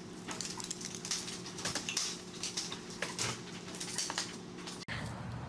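Small dogs' claws clicking and scrabbling on a hard floor as chihuahuas scuffle and dart about, in rapid irregular ticks.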